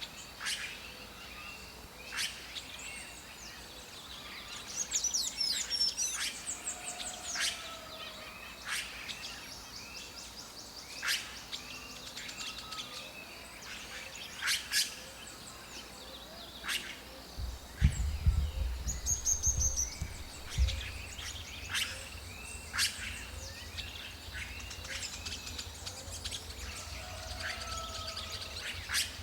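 Red-rumped caciques calling: a busy run of short arching notes and sharp, high chirps, several overlapping. A low rumble comes in a little past halfway.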